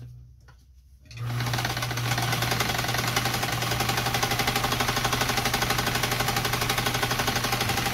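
Lincoln class 15 sewing machine starting up about a second in, then running steadily at speed with a fast, even clatter from the needle mechanism. It is free-motion stitching: the feed dogs are dropped and the presser-foot pressure is off, so the fabric is moved by hand.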